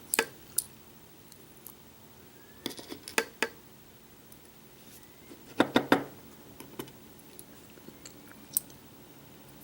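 Small metallic clicks and taps of a pin-tumbler lock being taken apart, its pins and tools being handled, in two short clusters about three and six seconds in, with single ticks between.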